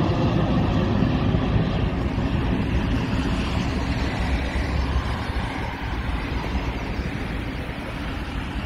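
Jet engine noise from a Boeing 737-800's CFM56-7B turbofans, a broad rumble fading steadily as the airliner climbs away after takeoff.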